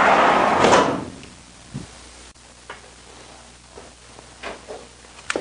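Glass door of a Rüegg Pi-Compact fireplace insert being worked on its opening and closing mechanism: a loud rushing slide for about the first second, then several light clicks and knocks as the door and its latch are handled.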